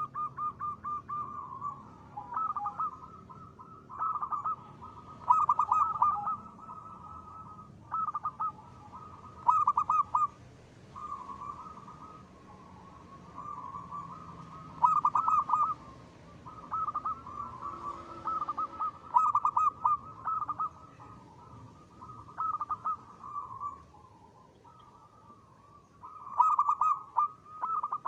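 Zebra dove (perkutut) cooing: short, rapid rippling coo phrases repeated one after another every second or two.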